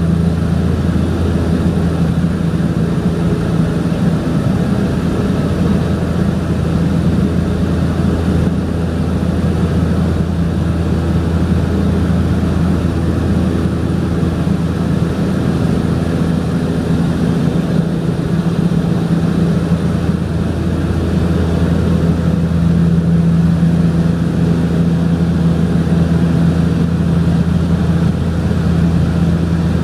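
Cabin drone of a de Havilland Canada DHC-6-300 Twin Otter in cruise: its two Pratt & Whitney PT6A turboprop engines and propellers running steadily, a deep hum over loud even noise, heard from inside the cabin.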